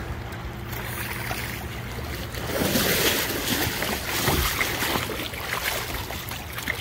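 A hooked trout thrashing and splashing in the shallow water at the rocky edge as it is brought in, the splashing getting louder about two and a half seconds in.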